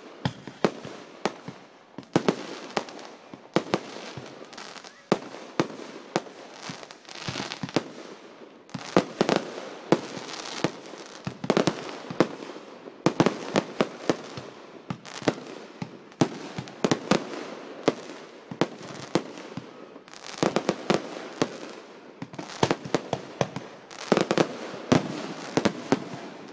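Aerial fireworks bursting one after another: sharp bangs at an irregular pace, often one to three a second, over a steady crackle.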